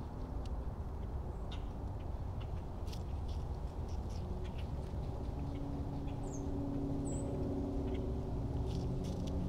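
Steady low outdoor rumble, with an engine-like drone coming up about halfway through. Light scattered clicks and rustles run through it, and two short high chirps come about two-thirds of the way in.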